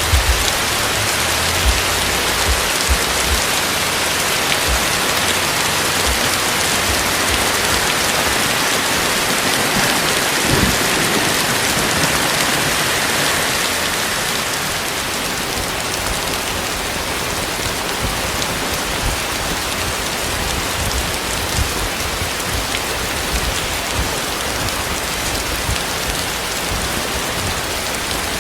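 Heavy rain pouring down steadily, with a few low thumps in the first seconds; the downpour eases slightly about halfway through.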